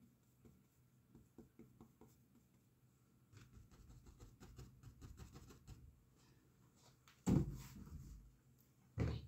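A paintbrush dabbing and scraping on canvas in many short, faint strokes, then two dull thumps, the first about seven seconds in and the second near the end.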